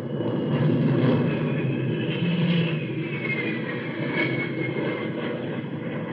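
Radio-drama sound effect of an aircraft engine in flight: a steady rushing drone with a thin high whine that slowly falls in pitch.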